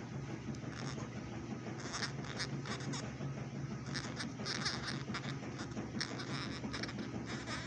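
Small pet parrot making short, high chirps and clicks in clusters every second or two while it eats a piece of tortilla, over a steady low hum.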